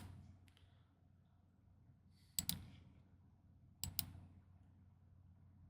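Computer mouse clicking: a faint click, then two quick double clicks about a second and a half apart, over a low steady hum.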